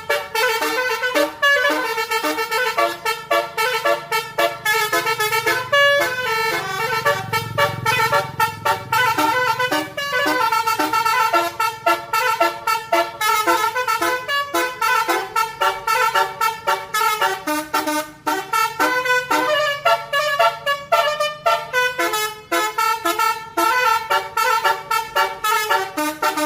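Bus telolet horn, a Basuri-style multi-tone musical air horn, playing a fast tune of short stepping notes without a break. A low rumble swells and fades about six to nine seconds in.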